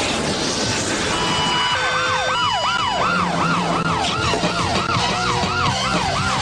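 A rushing noise at first, then from about two seconds in a fast wailing siren that swoops up and down about two and a half times a second, a cartoon alarm sound effect.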